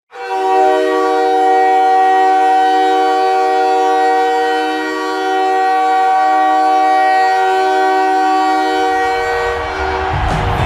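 Arena hockey goal horn blowing a loud chord of several steady tones, signalling a goal. It sounds in two long blasts with a brief dip about halfway, then fades near the end as a rising wash of noise comes in under it.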